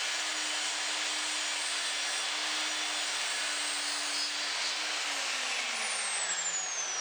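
An electric workshop power tool running steadily with a whirring hum, then switched off about five seconds in and winding down, its whine falling in pitch.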